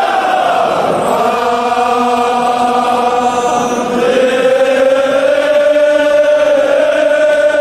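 Crowd of men chanting a Kashmiri mourning lament together, in long held notes that slide slowly in pitch.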